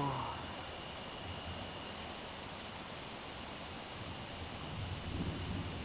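Night insect chorus: a steady, high-pitched trill of crickets, with short raspy insect calls repeating about once a second above it.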